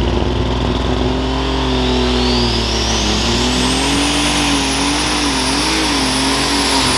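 Super stock pulling tractor's turbocharged alcohol engine running hard as the tractor pulls the sled. Its turbochargers whine up in pitch over about three seconds, then hold a high, steady whine.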